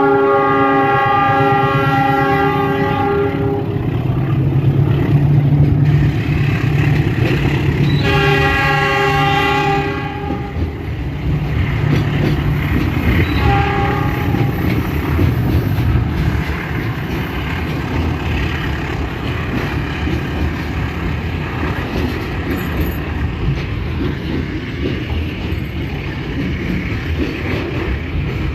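CC 206 diesel-electric locomotive sounding its multi-note air horn in a long blast, then a second shorter blast and a brief toot, as a driver's greeting. Under it, the locomotive and its wagons rumble steadily past.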